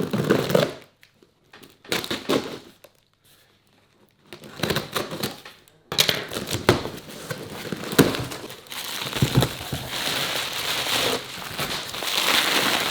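Packaging rustling and crinkling as a parcel is unpacked, with handling knocks: stop-start at first with a short pause, then steady crinkling through the second half.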